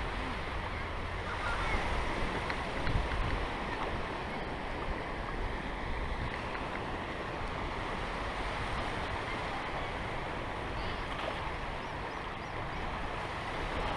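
Small waves washing in over shallow water, steady and even, with a low wind rumble on the microphone.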